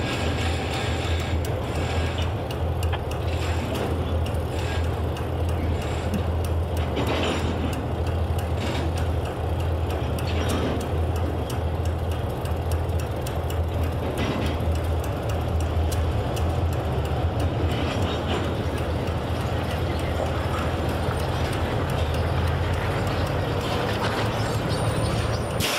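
Diesel locomotive running with a steady low rumble that pulses slightly, with scattered clanks and knocks over it.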